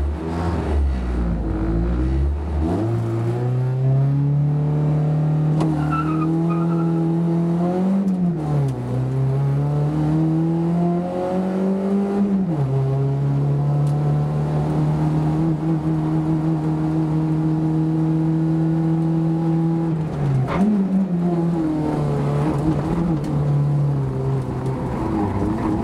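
Renault Clio II's 1.6-litre 16-valve four-cylinder engine heard from inside the cabin, accelerating away from a standstill. Its pitch climbs and drops sharply at upshifts about 8 and 12 seconds in, then holds steady, with a brief dip and recovery about 20 seconds in.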